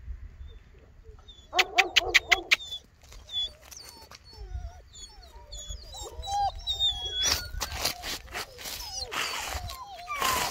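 Dogs barking and whining: a quick run of about eight barks around two seconds in, then high whimpering and whining notes that rise and fall, with several short noisy bursts near the end.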